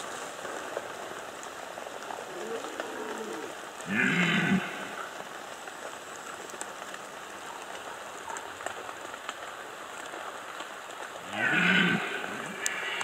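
Red deer stags roaring in the rut: a fainter call about two and a half seconds in, then a loud short roar about four seconds in and another near the end, over a steady hiss.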